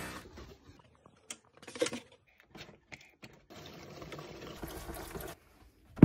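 Handling noise from a cardboard model-kit box being picked up and carried: a scatter of light clicks and knocks, then a faint steady rush for about two seconds that stops near the end.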